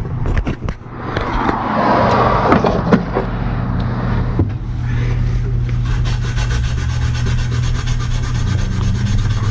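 Abrasive cloth scrubbing copper refrigerant tubing to clean the leak spot before brazing, loudest as a scraping stretch about one to three seconds in, over a steady low hum.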